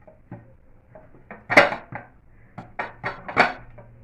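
A metal cooking pot (sufuria) knocking and clattering in about nine sharp knocks as it is handled to turn a baked cake out. The loudest knocks come about a second and a half in and near the end.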